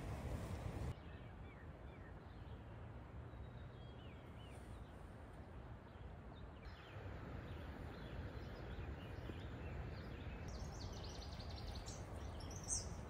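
Quiet outdoor morning ambience: small birds chirping and singing faintly now and then over a low steady rush, with more bird calls near the end. The background changes abruptly twice where the shots are cut.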